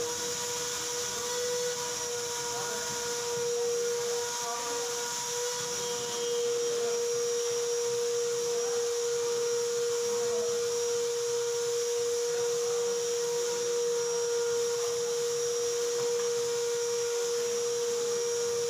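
Workshop machinery running: a steady, unwavering whine over a constant hiss.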